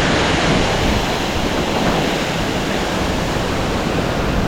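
Stream rushing loudly and steadily, an even roar of running water.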